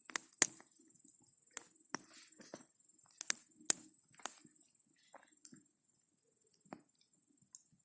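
Campfire wood crackling: irregular sharp snaps and pops, a few of them loud, over a faint steady high-pitched tone.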